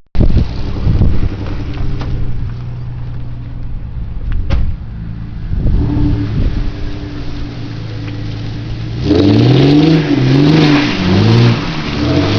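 A car engine idling, then revved in several quick blips near the end, its pitch rising and falling each time.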